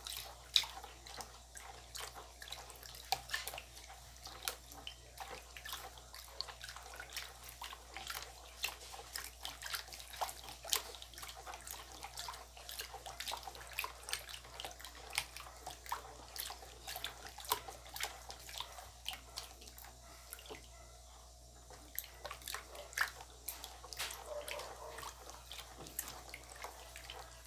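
Spoon stirring a thick, saponifying mixture of oil, lye and lemon-leaf juice in a plastic basin: irregular wet sloshing with frequent small clicks of the spoon against the basin. The stirring lets up briefly about three quarters of the way through.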